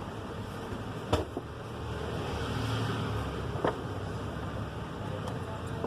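Steady fan-like background hum with two sharp clicks, one about a second in and one past the middle.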